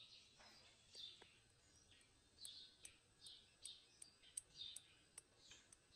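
Faint, high bird chirps repeating a few times a second, with a few light clicks from sticks being handled.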